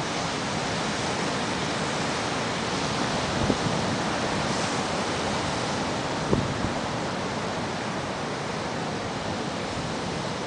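Ocean surf washing on the beach, a steady rush of noise, with two brief low thumps, one about a third of the way in and one a little past the middle.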